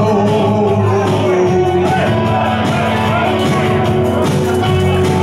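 Live rock music from an amplified electric guitar and electric bass guitar, with a man singing.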